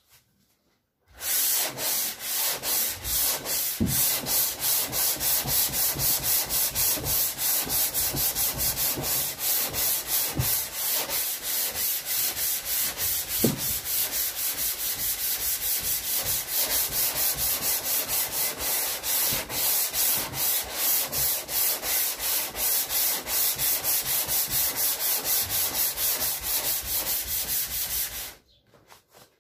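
Sandpaper on a hand sanding block rubbed back and forth over the primed steel roof panel of a Mk2 VW Golf GTI, in quick even strokes about two to three a second. It starts about a second in and stops shortly before the end. This is block sanding the guide coat to show up low spots and dents in the roof.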